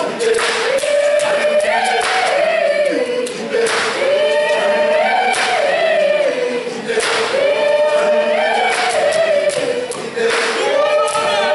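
A group of voices singing in chorus without instruments, a short rising and falling phrase repeated over and over, with sharp percussive hits now and then.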